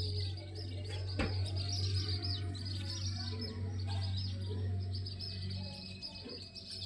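Chicks peeping constantly in many quick, high chirps that overlap.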